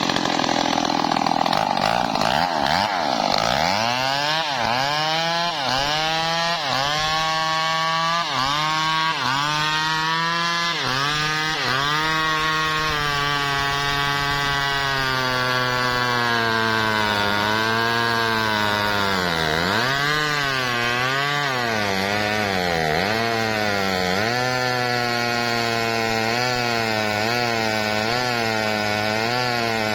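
Two-stroke chainsaw running at full throttle and cutting through wood. From about four seconds in, the engine's pitch dips and recovers about once a second as it bogs under load in the cut, then swings more slowly.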